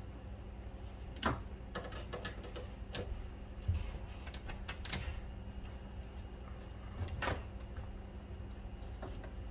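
Scattered clicks and light knocks of hands handling plastic drain pipe and clamp fittings under a kitchen sink, over a steady low hum.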